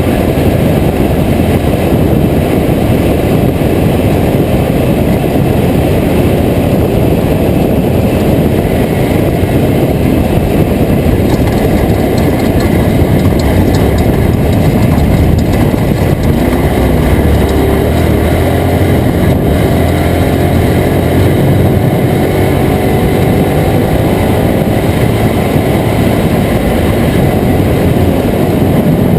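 Toyota Tacoma off-road race truck driving, a loud, steady mix of engine noise and rumble that never lets up.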